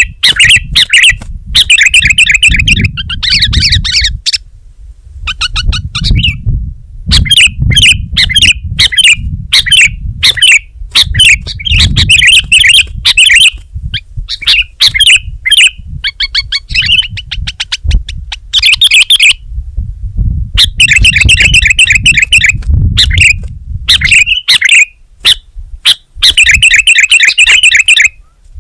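Sooty-headed bulbul (kutilang) calling loudly in rapid chattering bursts of short, clear notes, phrase after phrase with brief pauses, over a low rumble.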